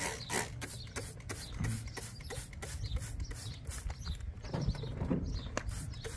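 Hand trigger spray bottle squirting soapy water in quick repeated spritzes, about three to four a second, onto a lawn tractor tire to find a leak by its bubbles.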